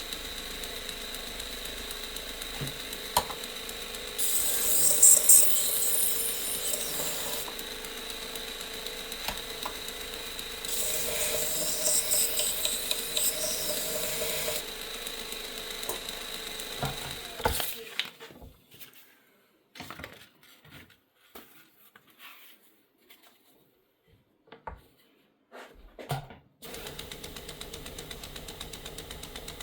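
Powered belt knife sharpener running with a steady hum and whine. A pocket-knife blade is drawn across its 600-grit belt twice, each pass a few seconds of hissing grind. The running sound then drops out for about nine seconds, with a few light clicks, and comes back near the end.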